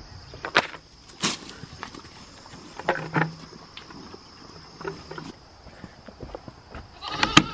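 Scattered crunches and clicks from pigs rooting and footsteps in a muddy pen, over a steady chorus of crickets. Near the end a sharp knock as the wooden barn door is opened, and a goat starts bleating.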